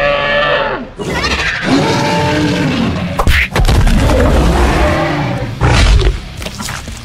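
Dinosaur roar sound effects, with crashing impact sounds about three seconds in and again near six seconds, over background music.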